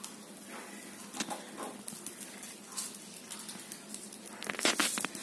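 Rice flour being rubbed through a steel mesh strainer onto an iron tawa: soft scratchy rustling with light taps, and a cluster of louder clicks and knocks about four and a half seconds in.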